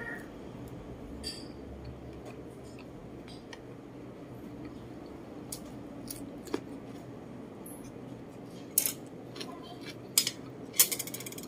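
Eating at close range: a metal spoon clicking and scraping on a ceramic plate, with chewing, over a low steady hum. Scattered soft clicks at first, then several sharp, louder clicks in the last few seconds.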